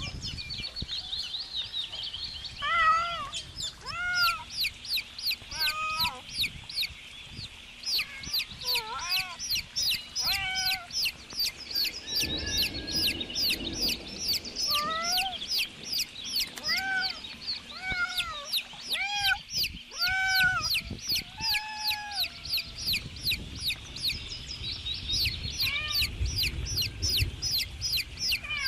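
Young chicks peeping rapidly and without pause, a few sharp high peeps a second, with slower, lower pitched calls now and then.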